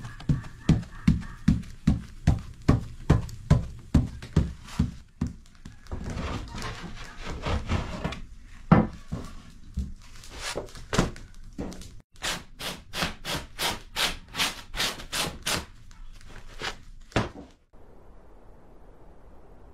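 Flatbread dough being stamped with a docking tool on a floured wooden board: a steady run of dull thumps, about three a second. Then scattered knocks and rubbing, with one louder knock, and a quicker series of sharp scraping strokes before the sound cuts off.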